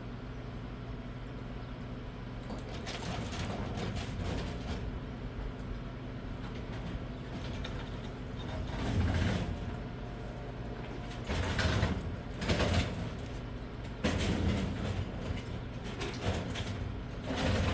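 A heavy tool box being shifted and dragged, with irregular scraping and knocking in several loud surges, over a steady low hum.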